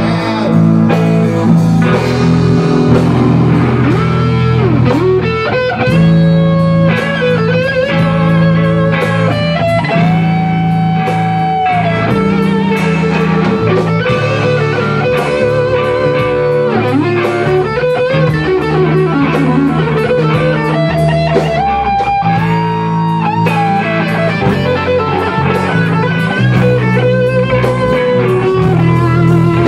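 A live rock band playing an instrumental blues-rock passage with no singing: an electric guitar plays a lead line of held, wavering and bent notes over drums, bass and a rhythm guitar.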